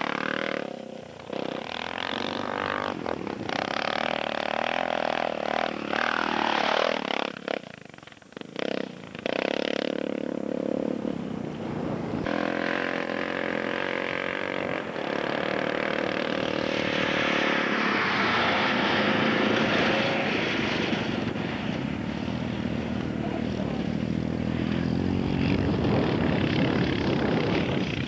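Dirt bike engine revving as the bike rides over sand, its pitch rising and falling as it accelerates and passes, then running more steadily in the second half.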